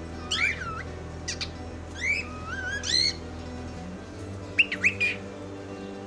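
Cockatiel whistling: a few short rising-and-falling whistled notes, then a quick run of sharp chirps about five seconds in.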